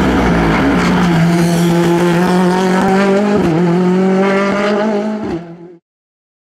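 Rally car engine held at high, fairly steady revs, with a brief dip in pitch about three and a half seconds in, then fading out quickly and cutting off near the end.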